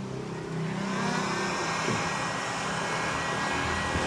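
Handheld electric heat gun running, a steady rush of blown hot air that starts about half a second in, warming tint film on a car headlight.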